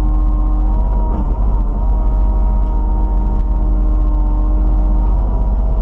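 Kubota KX91 mini excavator running loud and steady, a heavy diesel rumble with a whine from its hydraulics held on a few steady pitches that shift slightly as the machine works.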